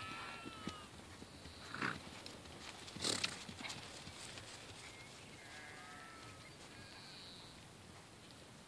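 Piebald pony trotting on grass, its hoofbeats soft and muffled by the turf. Two short breathy bursts stand out about two and three seconds in.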